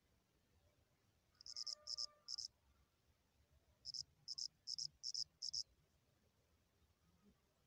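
A cricket chirping: three short, high chirps, then after a pause a run of five more at about three a second.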